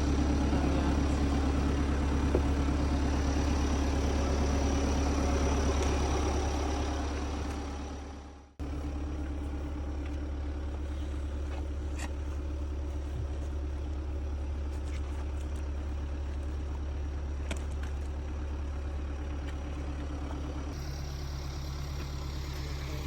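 Farm tractor engine running steadily. It fades away about eight seconds in, then runs on again a little quieter, with a few faint clicks.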